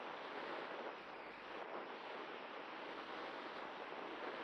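Airflow rushing over the onboard camera's microphone on a Cularis glider in flight, a steady hiss with no motor tone heard, dipping slightly about a second in.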